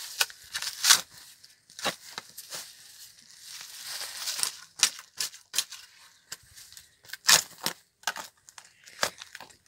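Spade blade driven into soil thick with dry grass, leaves and stalks and turning it over: a series of irregular sharp crunches and scrapes, with a longer rustle of crumbling soil about four seconds in.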